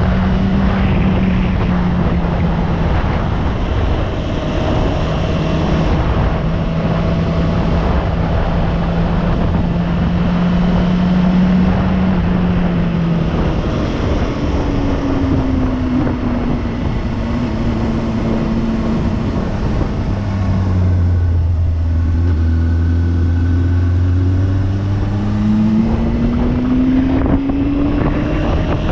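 Motorcycle engine under way with wind rushing over the microphone. The engine holds a steady note, falls off as the bike slows about halfway through, settles low for a few seconds, then climbs again as it accelerates near the end.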